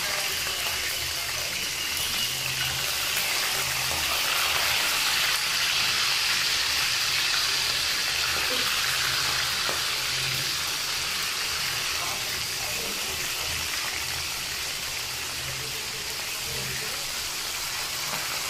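Hot oil sizzling steadily in a frying pan, with food frying in it.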